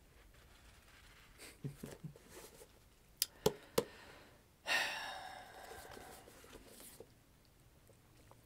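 A man's long breathy sigh, starting suddenly and fading over about two seconds, after a few soft taps and three sharp clicks.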